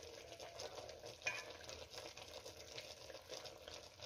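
Faint sizzling crackle from a pot of rabbit and pumpkin stew (dimlama) cooking on the heat with its lid off, with one light click about a second in.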